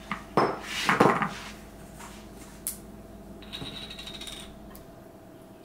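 Kitchen clatter of a utensil and dish knocking as chopped red bell pepper is added to the blender jar: a cluster of knocks and rattles in the first second or so, then one short click.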